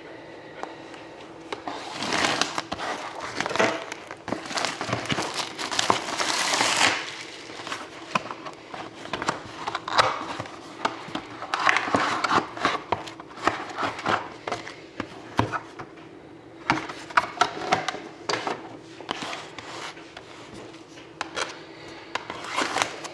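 Plastic shrink-wrap and packaging on a box of trading cards crinkling and tearing as it is unwrapped, in several rustling bursts with sharp clicks of handling between them.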